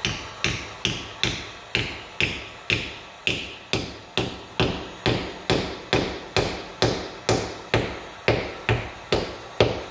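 Hammer tapping a wedge down into the seam behind a granite backsplash lip, with about two sharp strikes a second, steady and even throughout. The wedge is being driven into heat-softened caulk to pry the backsplash away from the wall.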